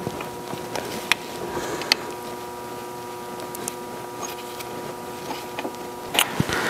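A few sharp metal clicks and light scraping as a set screw is worked out of a collar on a lathe gearbox shaft, over a steady hum; a burst of handling noise near the end.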